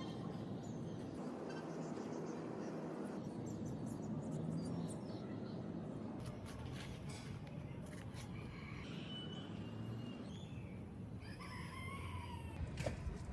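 Bird calls over a steady low background noise, with scattered light clicks. Short chirps come about two-thirds of the way in, then one longer pitched call near the end.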